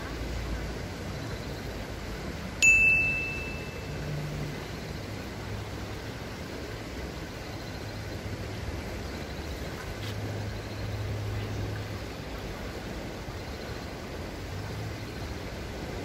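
A single sharp metallic ding, like a small bell struck once, about three seconds in, ringing on one clear high tone and fading within about a second. It sits over a steady outdoor background rush.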